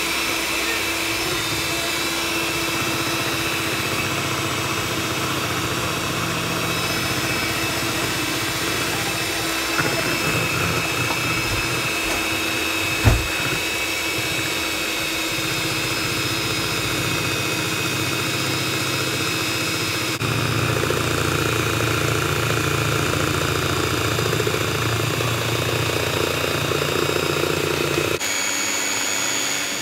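Electric hand mixer running steadily, its beaters whipping double cream and icing sugar in a stainless steel bowl. A single sharp knock comes about 13 seconds in; the motor grows a little louder about 20 seconds in and its note changes again near the end.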